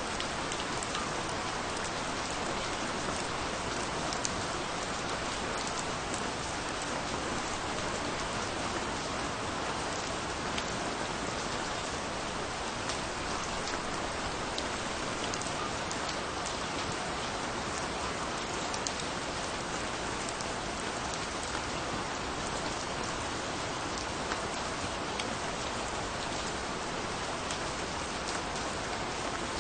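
Steady rainfall: an even hiss of rain with many small drop ticks scattered through it.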